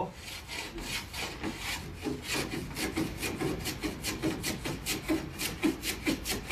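A small hand tool, a rasp or sanding block, rubs back and forth along the edge of a thin plywood canoe panel in short, even strokes, about three to four a second.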